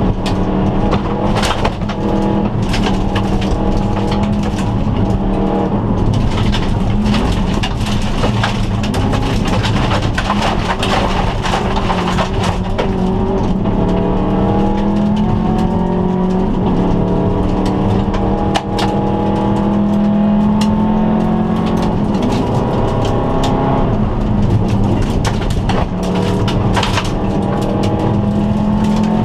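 Turbocharged flat-four engine of a 2002 Subaru Impreza wagon rally car, heard from inside the cabin, revving up and dropping back again and again through gear changes at full pace on a gravel stage. Gravel constantly clicks and pings against the car's underbody.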